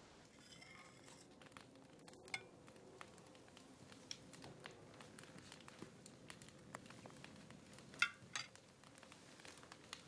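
Light clinks of a metal spoon against a china soup bowl and dishes in a quiet room, the loudest two close together about eight seconds in.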